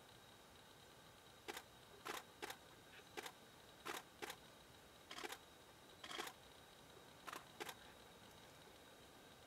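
About a dozen camera shutter clicks, some single and some in quick pairs, at irregular intervals over a near-silent background with a faint steady high-pitched hum.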